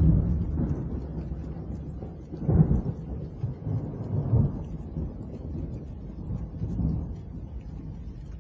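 Thunder sound effect: a rolling low rumble with a sharper clap about two and a half seconds in, then further swells that die away, over faint rain.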